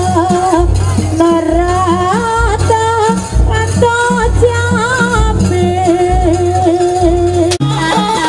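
Jaranan sampak accompaniment: an East Javanese gamelan ensemble playing a wavering, ornamented melody over a steady beat of drum and gong, breaking off for a moment near the end.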